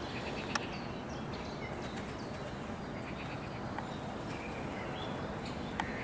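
Outdoor ambience by the water: a steady low background noise with faint, short bird chirps and a few sharp clicks.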